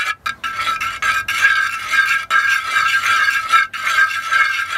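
A metal spoon beating raw eggs fast in a clay pot, clinking and scraping against the pot's sides in a rapid, nearly continuous rattle that starts about half a second in.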